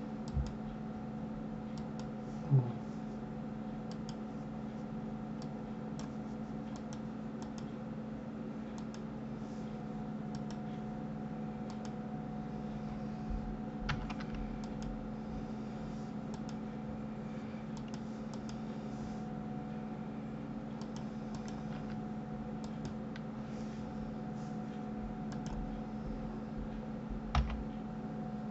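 Sparse computer keyboard keystrokes and mouse clicks over a steady low electrical hum, with a few louder clicks standing out.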